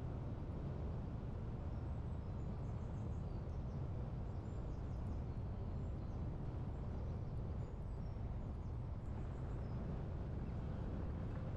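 Steady low wind rumble with faint, scattered high bird chirps.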